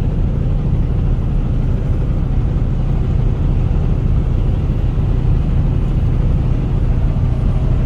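Steady running noise of a vehicle cruising at highway speed: an unbroken low engine drone with road and wind noise over it.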